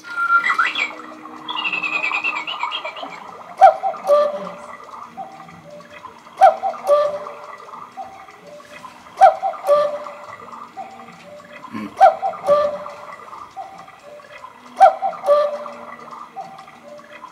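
Chalet-style cuckoo clock calling: each time the bird comes out with a click, the clock's bellows-driven pipes sound a falling two-note "cuckoo". The call repeats five times, about every three seconds.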